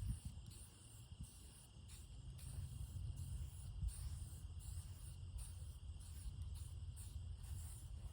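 Insects chirping in a steady pulsing rhythm, over a low rumble of wind on the microphone.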